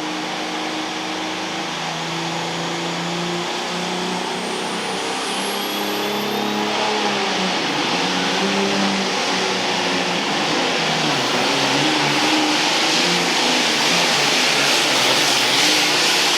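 Super Farm pulling tractor's turbocharged diesel engine running hard under load during a pull. Its pitch wavers up and down, and it grows steadily louder.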